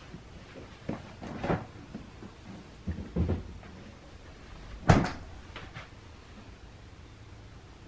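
A few household knocks and bumps, the loudest a sharp knock about five seconds in.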